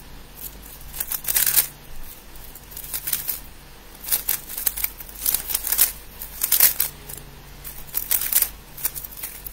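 3x3 speedcube being turned fast: rapid plastic clicking and clacking of the layers in quick flurries with short pauses between them.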